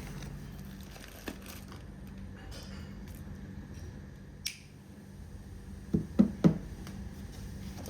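Handling noises over a steady low hum: a light click, then a sharper click, then three quick low knocks close together about six seconds in.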